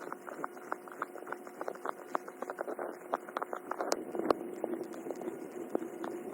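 A cat kneading, its claws catching and pulling on soft fabric in quick, irregular clicks, several a second, over a steady faint hum.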